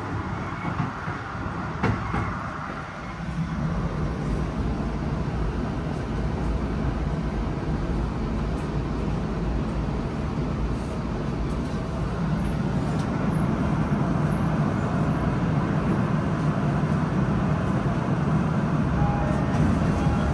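Tokyo Metro Ginza Line 1000-series subway train running, heard from inside the car: a steady rumble of wheels on rail that grows a little louder a few seconds in.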